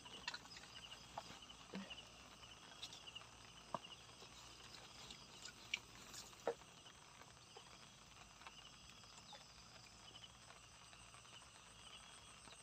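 Faint insect chirping: short pulsed trills at one high pitch, repeating over and over, with a few scattered sharp clicks, the loudest about six seconds in.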